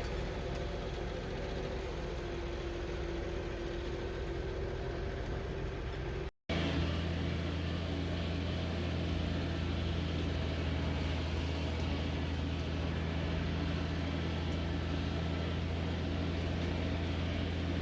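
Tractor engine running steadily, in two stretches cut together about six seconds in; the second has a stronger, deeper steady drone.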